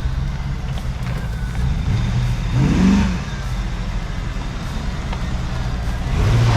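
C4 Corvette's LT4 V8 engine idling, with a short rev that rises and falls about three seconds in and another rise in revs near the end.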